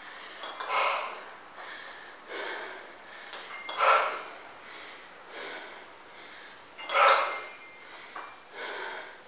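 A woman breathing hard and loudly under exertion, in rhythm with repeated dumbbell squat-to-press reps. The strongest breaths come about every three seconds, with softer breaths between them.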